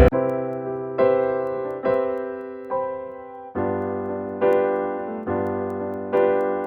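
Down-tempo R&B lounge instrumental in a sparse passage: keyboard chords struck about once a second, each fading out, with the drums and bass dropped out.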